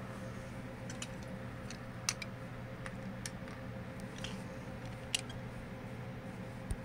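Steady low hum of room tone with a few small, sharp clicks scattered through it.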